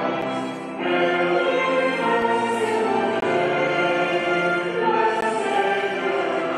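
Choral music: a choir singing sustained chords, with a brief dip before a new phrase swells in about a second in.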